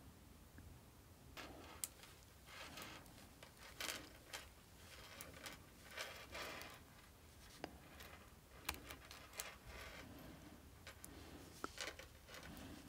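Faint handling noise as thin steel leader wire is wound by hand around a small knotless swivel: irregular soft rustles and light metallic ticks.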